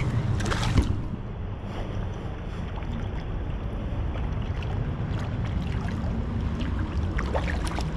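Shallow river water running over stones, with wind buffeting the microphone at the water's edge. There is a sharp knock about a second in and a few small splashes near the end as a hooked rainbow trout is drawn in by hand.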